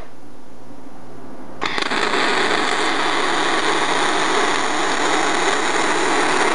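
Aluminium MIG welding arc from a Miller Spoolmate 150 spool gun. It strikes about a second and a half in, after a short pause with only a low hum, and then runs steadily as a bead is laid, with the wire feed turned down slightly.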